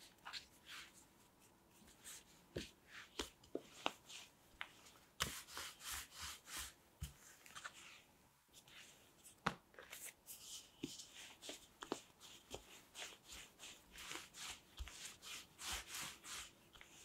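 Faint rubbing, patting and light taps of hands folding and stretching soft bread dough on a wooden cutting board. In the second half come quicker, more regular strokes, and near the end a wooden rolling pin rolls the dough flat.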